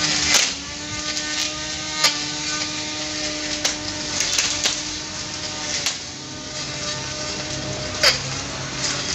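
A 12-volt cordless grass trimmer (CDGT360 Xenon) with a steel blade running and cutting grass: a steady motor whine with sharp clicks every second or two as the blade strikes stalks or debris.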